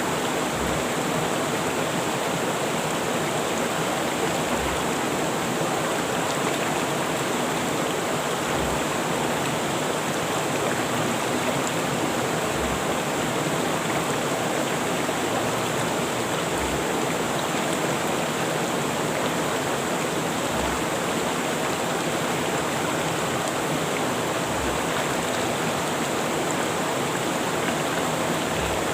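Rushing river water: a steady, dense rush of flowing water. A soft low thump recurs about every four seconds.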